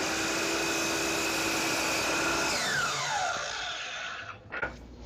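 DeWalt DW718 12-inch sliding compound miter saw running at full speed with a steady whine. About two and a half seconds in the trigger is released, and the whine falls in pitch over about a second as the blade winds down. A few clunks follow near the end.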